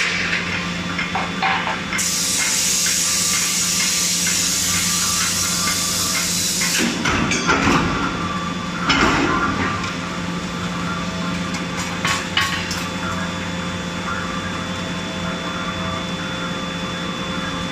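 Forging-line machinery running with a steady hum, a loud hiss for about five seconds starting near two seconds in, then rough clattering around eight to nine seconds and a few sharp metal knocks around twelve seconds.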